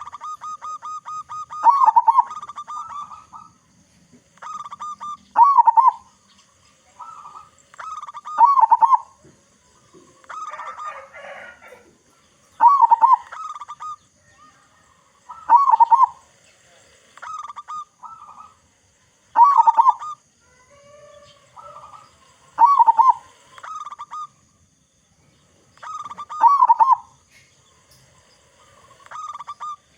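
Local zebra dove (perkutut) with a big voice singing its cooing song, repeating a phrase about every three and a half seconds. Each phrase opens with a fast stuttering run of notes and ends in deeper coos.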